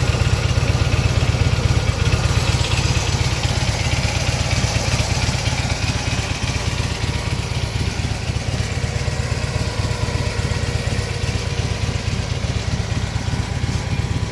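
2016 Harley-Davidson touring motorcycle's V-twin engine idling steadily, with a rapid low pulsing exhaust beat.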